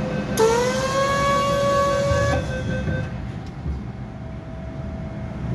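Horn of an MTR M-Train sounding one long note: it starts about half a second in, rises slightly in pitch, then holds steady and cuts off a couple of seconds later, over the low rumble of the train.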